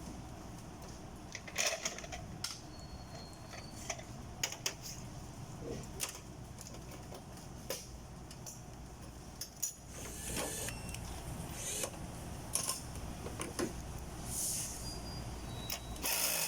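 Scattered sharp clicks and knocks, with a few short hissing bursts in the second half, over a steady low hum.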